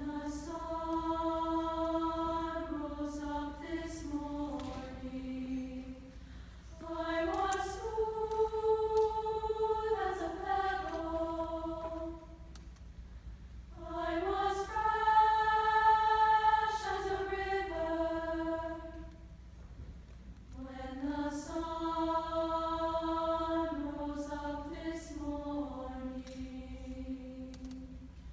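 High school mixed choir singing sustained chords in four phrases of about six seconds each, with brief breaks between them. The third phrase is the loudest.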